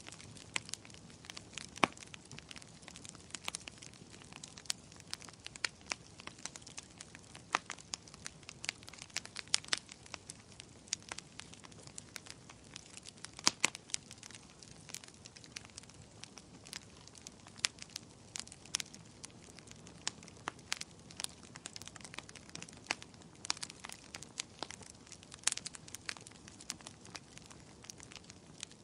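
Wood bonfire crackling: irregular sharp pops and snaps over a soft steady hiss of burning.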